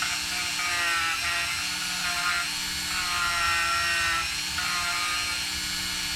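Dremel rotary tool with a sanding drum grinding into a skeleton bird prop's bone, a steady high whine whose pitch dips and recovers several times as it bites into the material.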